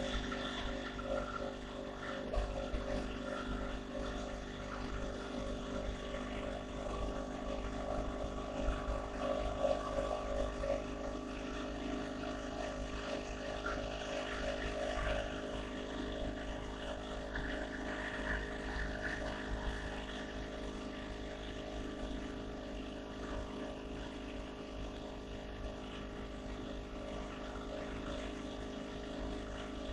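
Honda CB500X's parallel-twin engine running at a steady highway cruise, picked up by a dashcam microphone. An even engine drone holds one pitch throughout, over a low rumble of wind and road noise.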